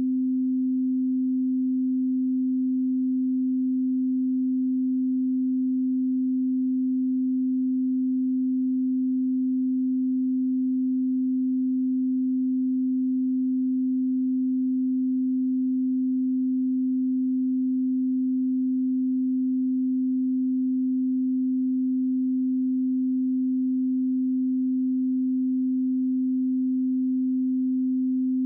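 Steady 258 Hz pure sine-wave test tone, one unchanging low hum with no other sound.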